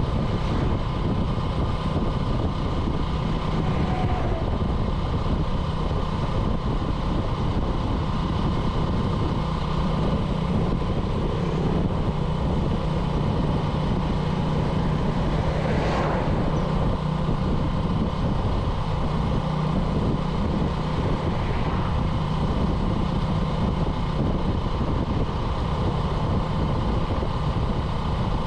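Small motorcycle engine running steadily while riding, over a constant rush of road and wind noise. One short click comes about halfway through.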